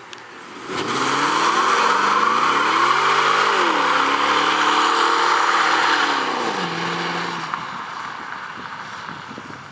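2010 Camaro SS's 6.2-litre V8 revving at about half throttle in a burnout, the rear tyres spinning and squealing on the asphalt. The engine pitch climbs for a few seconds and drops twice, and the sound fades as the car pulls away.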